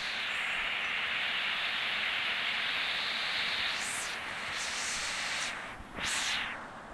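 Heavy rain falling, a steady hiss that starts abruptly, dips briefly about six seconds in, then picks up again.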